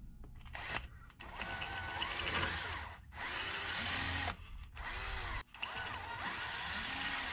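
Cordless drill boring out the roll-pin hole in a 3D-printed plastic sunroof bracket, enlarging a hole that is too tight. It starts about a second in and runs in four spurts with three brief stops, its speed rising and falling as the trigger is worked.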